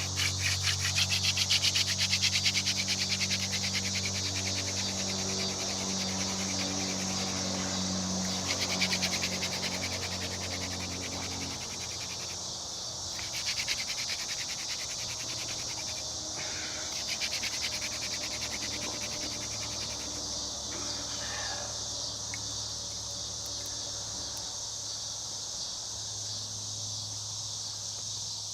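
Yucca spindle spun between the palms in an Osage orange hearth board, a fast rubbing that grinds the yucca to powder, for roughly the first twelve seconds. Insects chirr steadily and high throughout.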